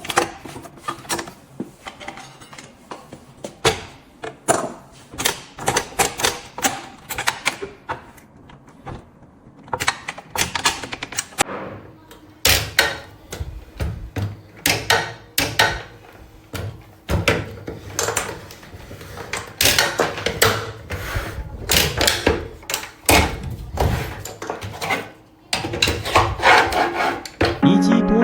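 Irregular knocks, clicks and clatter of hard parts being handled and set down, heavier and more frequent from about halfway through.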